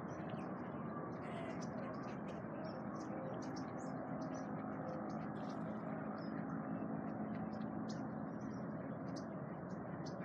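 Birds chirping, many short high chirps scattered throughout, over a steady low background rumble.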